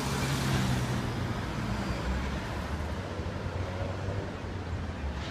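A car driving past close by, loudest in the first second, over a steady rumble of city street traffic.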